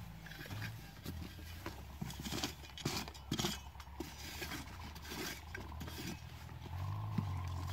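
Short knocks, scrapes and rustles of hands and a digging tool working soil, grass and a cardboard box, thickest in the middle, over a low steady hum.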